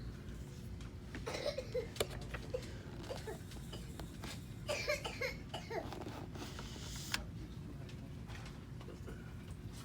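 Quiet shop-floor background: a low steady hum with faint voices in the distance and a few light clicks.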